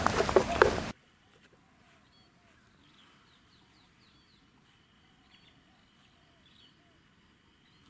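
A loud noisy stretch cuts off suddenly about a second in. After it, faint birds chirp now and then over a thin steady high tone.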